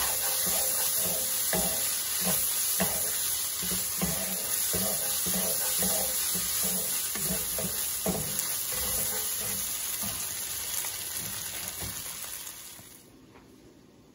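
Shrimp and green onions sizzling in a hot nonstick wok, stirred with a wooden spatula in repeated scraping strokes. The sizzle cuts off suddenly near the end.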